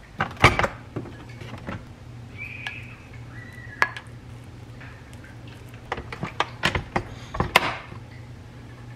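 Kitchenware clinking and knocking as cooked rice is scooped with a plastic rice paddle into a ceramic bowl. There are a few sharp clinks near the start and a quick run of them toward the end. Two brief high tones come in the middle, all over a low steady hum.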